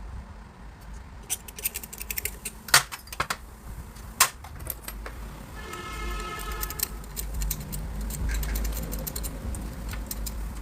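A quick run of sharp metallic clicks and clinks, like tools or small metal parts being handled, over a steady low rumble. About six seconds in comes a short pitched tone.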